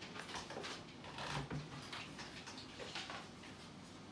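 Faint, irregular light clicks and taps over quiet room noise.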